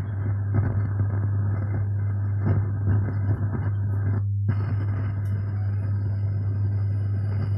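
Home theater subwoofer giving off a loud, steady low hum with crackly noise over it, the fault the subwoofer is being repaired for. The crackle stops for a moment about four seconds in, but the hum carries on.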